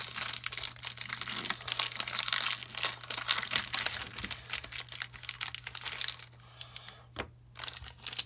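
Foil trading-card booster-pack wrapper crinkling and tearing as it is ripped open and the cards are pulled out. The crinkling stops about six seconds in, and a single light tap follows a second later.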